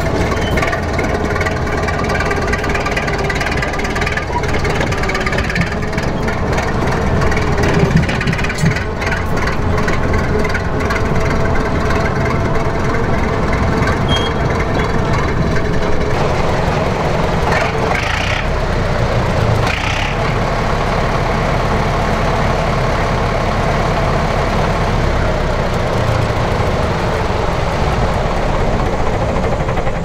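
Diesel engine of a Soviet T-100 crawler bulldozer running steadily at low revs.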